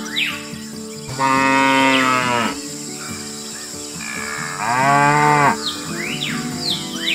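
A cow mooing twice, two long moos that fall in pitch at their ends, over light background music with birds chirping.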